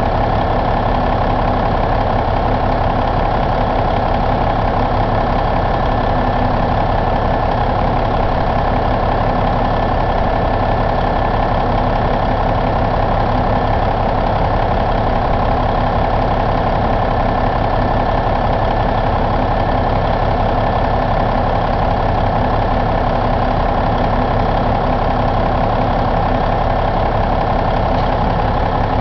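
1994 Cummins N14 Celect inline-six turbodiesel idling steadily at an even speed.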